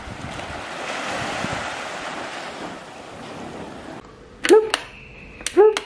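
Sea surf and wind noise for about four seconds. Then two loud, short, sharp sounds come about a second apart, followed by a faint steady high tone.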